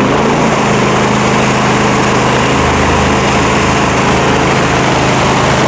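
Trailer-mounted pressure washer's engine running steadily at a loud, even pitch, just after being started for its test run.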